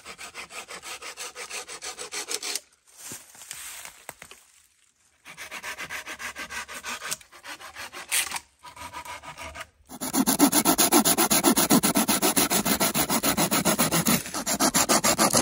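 Small hand saw cutting through a dead hemlock branch in quick, even back-and-forth strokes, stopping and starting a few times. From about ten seconds in, louder, faster strokes of a blade working along a stick.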